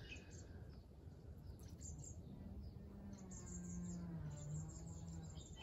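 Faint outdoor birdsong of short chirps, joined from about two seconds in by a low steady hum that sinks slightly in pitch and stops a little past five seconds.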